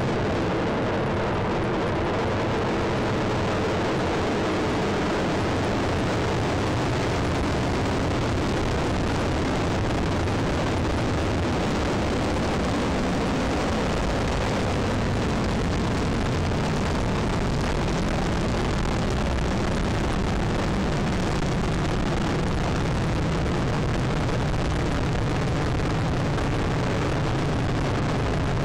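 Long March 2C rocket lifting off, its four-engine first stage giving a continuous deep roar that holds steady and loud as the rocket climbs away.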